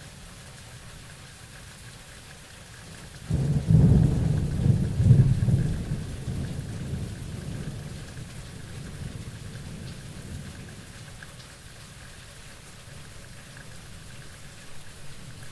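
Steady rain hissing throughout, with a thunderclap that breaks in sharply about three seconds in. It rumbles loudly for a couple of seconds, then dies away over several more.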